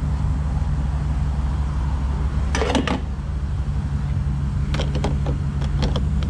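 Refuelling at a gas station pump: a steady low hum with a short clatter about two and a half seconds in and a few clicks near five seconds, from the fuel nozzle and filler being handled.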